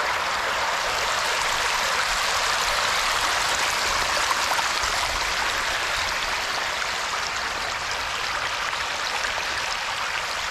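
Steady rush of running water, an even hiss without breaks.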